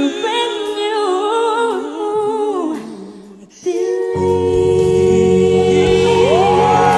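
A female and a male pop singer singing a duet, with ornamented vocal runs over a soft backing. The sound dips briefly about three seconds in, then a fuller backing comes back in and one voice rises to a long held high note near the end.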